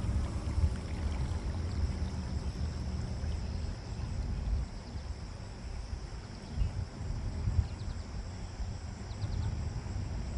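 Wind rumbling on the microphone in uneven gusts, strongest in the first second or two and easing after.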